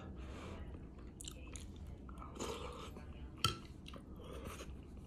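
A person chewing a spoonful of chili with rice: faint mouth sounds with scattered small clicks, and one sharper click about three and a half seconds in.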